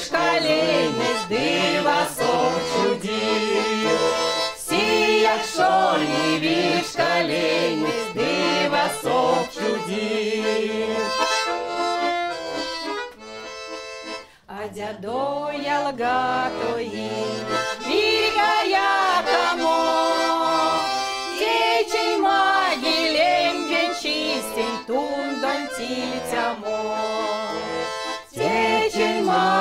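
Tula-made button accordion (bayan) playing a folk song tune, with a short dip about halfway through. Women's voices singing together come back in near the end.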